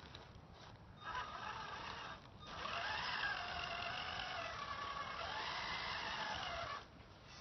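Tamiya F350 Highlift RC truck's electric motor and gears whining as it drives on pavement: a short burst about a second in, then a longer run from about two and a half seconds until near the end, the pitch rising and falling with the throttle.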